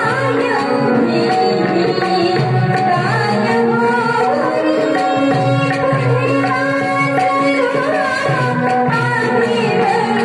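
Indian devotional song music: tabla playing a steady rhythm under harmonium and keyboard, with a sliding melody line on top.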